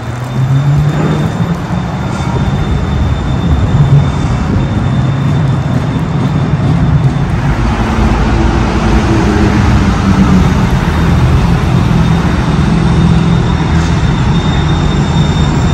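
Astra Imperio Metropolitan tram running along the track: a steady rumble with a low hum that gets louder right at the start.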